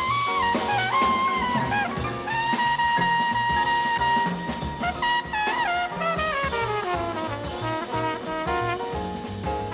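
Flugelhorn playing a jazz solo over a walking bass and drum kit. It holds a high note, plays a short phrase and holds another long note, then plays a run of notes that step downward.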